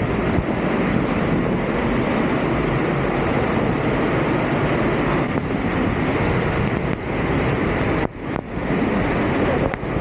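Waterfall's falling water rushing steadily, with a couple of brief dips in loudness near the end.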